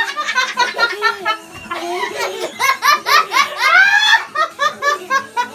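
Young girls laughing hard in quick, high-pitched runs of giggles.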